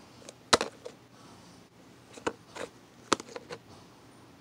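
Fingers poking and squeezing fluffy slime with little beads in it inside a plastic container, giving a few sharp pops and clicks, loudest about half a second in and again just after three seconds.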